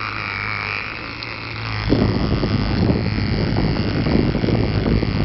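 Handheld two-AA battery mini fan with soft rubber blades running, its small motor giving a steady hum and whine. About two seconds in a louder rough rushing noise sets in as the fan's air blows straight onto the microphone.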